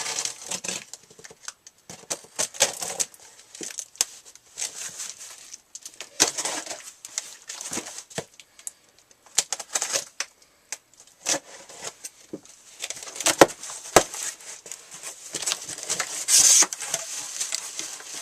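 Hands opening a shipping package: packaging crinkling, rustling and tearing, with scattered sharp taps and knocks, and a longer tearing rustle near the end.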